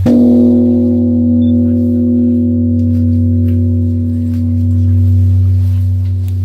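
Large Korean Buddhist temple bell struck once, ringing on with a deep hum and several clear higher tones that swell and fade slowly. It rings over the still-sounding hum of the previous strike.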